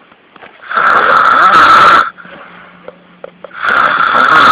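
Very loud snoring: two long snores of more than a second each, about three seconds apart, with quieter breathing between them.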